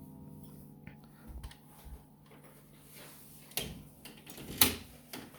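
The last chime note of a 1981 Howard Miller triple-chime grandfather clock ringing and dying away, followed by two sharp knocks about a second apart, the second louder, near the end.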